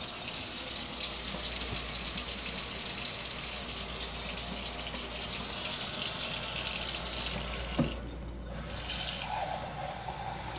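Kitchen tap running steadily into a measuring cup, filling it with cold water. The flow stops about eight seconds in with a short knock.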